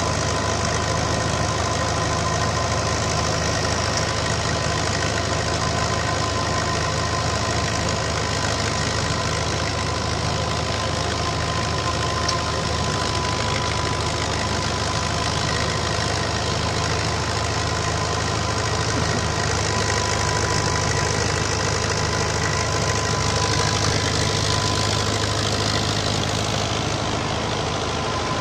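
Tractor engine running steadily under load, driving a Super Shaheen canola thresher through its PTO shaft; the thresher's spinning drum and blower add a steady whine over the engine's low hum.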